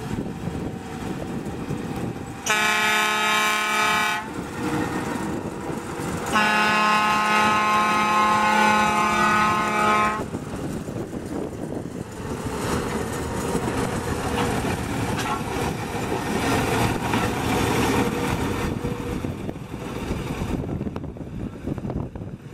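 Narrow-gauge railcar sounding its horn twice, a short blast then a longer one, then its engine running and wheels rumbling on the rails as it pulls away.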